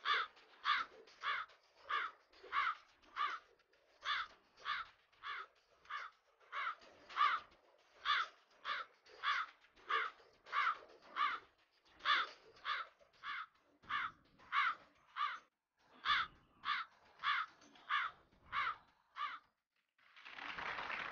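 Crow cawing sound effect: a long string of harsh caws, about three every two seconds, each falling in pitch, with a few short breaks. About twenty seconds in it gives way to a short burst of applause.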